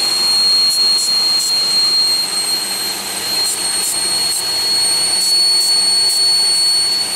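2001 Pontiac Aztek GT's 3.4-litre V6 running with a steady, ear-piercing high-pitched whine, while carb and throttle body cleaner is sprayed around the intake plenum in about ten short hissing bursts. The whine is a vacuum leak, which the owner bets is a leaking plenum gasket.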